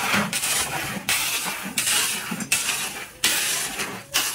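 Steel shovel scooping crushed stone gravel and tipping it into a bucket: a repeated gritty scrape and rattle of stones, about six scoops, each starting sharply and fading, at under a second apart.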